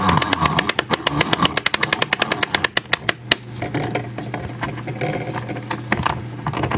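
Hand-cranked mainspring winder clicking rapidly as a clock mainspring is wound up into its clamp; the clicking thins out and stops about three seconds in, followed by a few scattered clicks.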